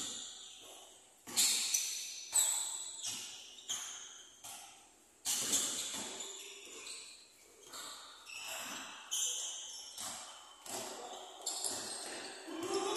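Basketball bouncing and sneakers squeaking on a wooden gym court during play, in irregular hits and squeals, each ringing out in the echo of a large hall.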